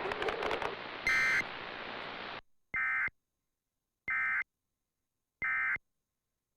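Emergency Alert System end-of-message data bursts: short, harsh digital warbling tone bursts. One comes about a second in over background hiss, which cuts off suddenly. Then three identical bursts follow about a second and a half apart, with silence between them, signalling the end of the alert.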